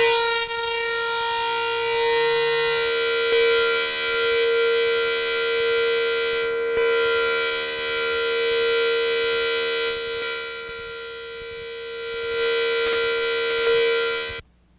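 A steady, held droning tone with many overtones. It swells and dips in loudness without changing pitch and cuts off suddenly near the end.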